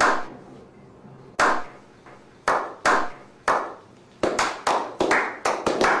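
A slow clap by a small group of men: single hand claps a second or so apart, quickening from about four seconds in to a steady run of about five a second.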